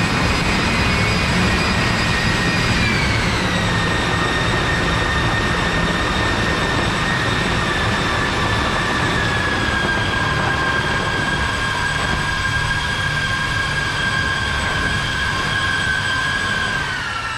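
Homemade wind machine of several high-speed electric fans running flat out: a loud rush of air with a high whine that steps down in pitch about three seconds in and again near the end as the fans slow. A nylon jacket flaps in the airflow.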